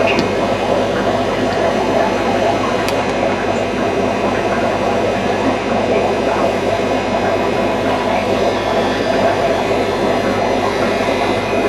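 Steady hum and hiss with a faint mains-hum tone underneath, unchanging throughout.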